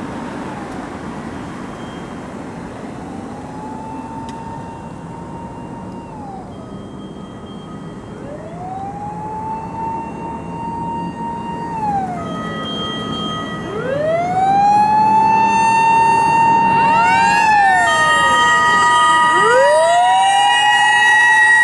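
Mechanical motor sirens of fire-brigade pump trucks on an emergency run. Each wail rises slowly to a held high pitch, then slides down. About two-thirds of the way through, a second siren's wails overlap the first and the sound grows much louder as the trucks come close, with a low truck-engine hum underneath.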